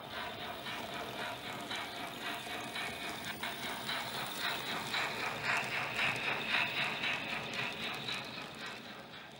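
Model train rolling past, its wheels making a rapid, even clicking and clattering on the track. The sound grows louder as the wagons pass closest, then fades away.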